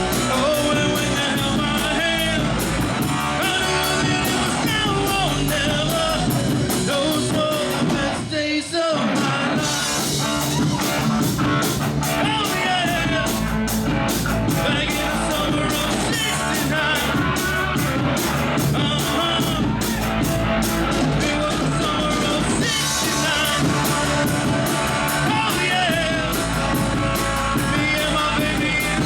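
Live rock band playing a song with a singer, guitar, bass and drums. The band stops briefly about eight seconds in, then comes straight back in.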